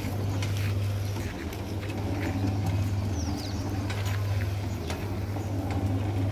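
Electric motor of a makeshift monkey-lift hoist humming steadily as it winches a skip bucket up the wall on its wire, dipping briefly about a second and a half in and again near five seconds. Scattered light clicks and knocks, and a couple of short bird chirps.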